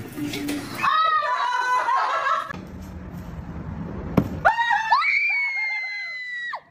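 Two high-pitched screams: a short, wavering one about a second in, and a long held shriek from about four and a half seconds in that cuts off suddenly at the end. A sharp knock comes just before the second scream.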